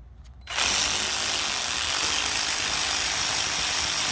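A power tool running continuously with a loud, steady hiss, switching on about half a second in.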